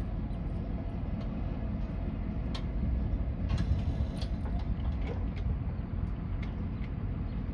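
Railroad crossing gate arms rising on their GRS gate mechanisms, with a few sharp clicks and clunks around the middle as the arms come upright, over a steady low rumble.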